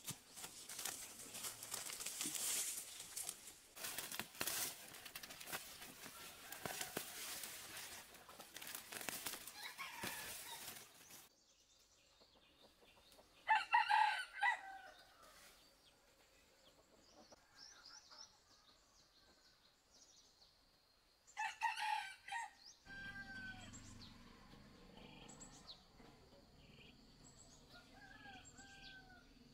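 Dry leaves and grass rustling and crackling as hands work through the undergrowth, stopping about a third of the way in. A rooster then crows twice, each crow about a second long, and small birds chirp near the end.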